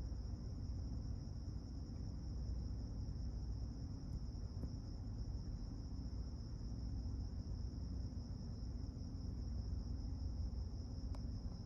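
Steady low droning rumble outdoors, which the recordist likens to a bunch of helicopters and generators running together. A steady high-pitched trill runs above it, and there is a faint tick near the end.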